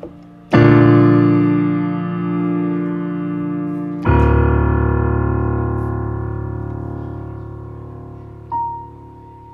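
Piano chords: one struck about half a second in and another about four seconds in, each held and slowly dying away, then a single high note near the end.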